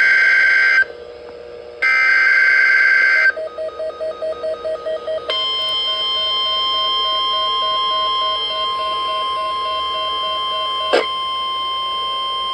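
Weather alert radio relaying an Emergency Alert System activation that opens a new snow squall warning. Two short screeching bursts of SAME header data come first, then a rapid pulsing beep about four times a second, then the steady high attention tone from about five seconds in. A sharp click sounds near the end.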